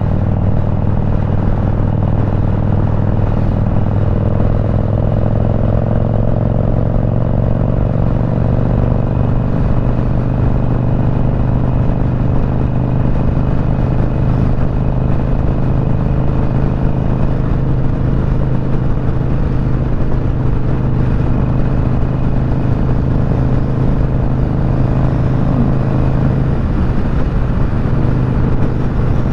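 Motorcycle engine running steadily at a constant cruising speed, heard from the rider's seat together with a rush of wind and road noise. The engine note holds even, with a slight rise in pitch a few seconds in.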